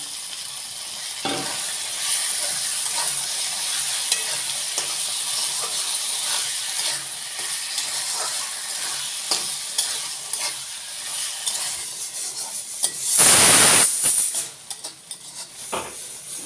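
Pigeon meat sizzling steadily in spiced masala in a wok, freshly added to the hot paste. A metal spatula stirs and scrapes it, making frequent light scraping clicks. About thirteen seconds in there is a much louder hiss lasting about a second.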